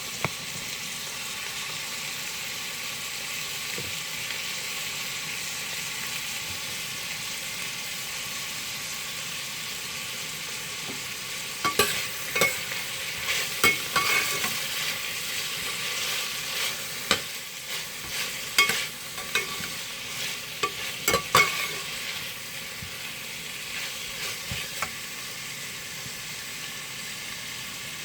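Food sizzling steadily in a frying pan as chopped tomatoes, garlic, onion and ginger sauté. From about halfway through, a utensil stirs the pan, with repeated sharp scrapes and knocks against the pan.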